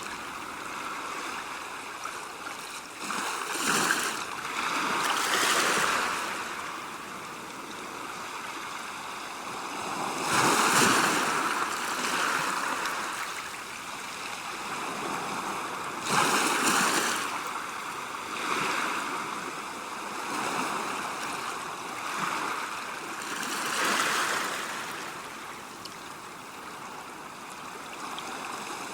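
Sea waves washing in, a steady rush of water that swells into a louder surge every few seconds at uneven intervals.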